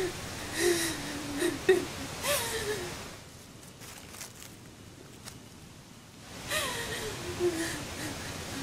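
A woman's breathy moans and gasps: several short, falling vocal sounds in the first three seconds. A quieter stretch follows, then one longer falling moan about two-thirds of the way in.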